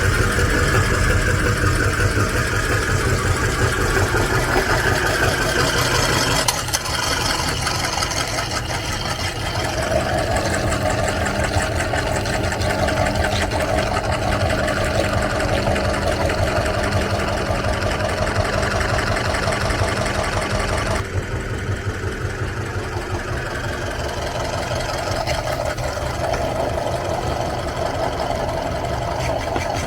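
Electric meat grinder running steadily, a loud motor hum with a fast rattle, its sound shifting several times, about six, ten and twenty-one seconds in.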